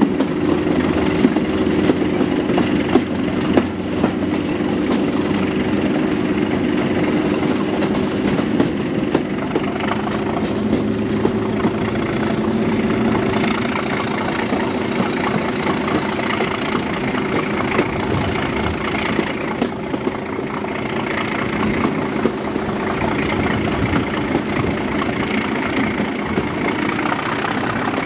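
Class 37 diesel locomotive's English Electric V12 engine being worked hard on the move, a loud, steady drone with a high whistle that rises slightly in pitch near the end.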